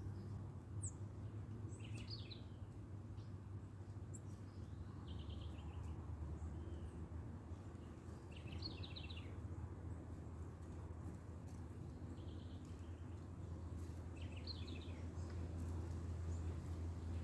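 Small birds chirping, with a short song phrase repeated three times about six seconds apart and a few single chirps between, over a low steady hum.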